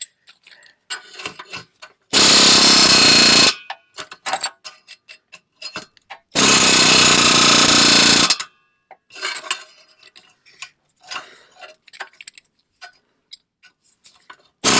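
Impact wrench hammering in three bursts of one to two seconds on a rusted exhaust clamp nut, with small metallic clicks and clanks of tool handling between the bursts.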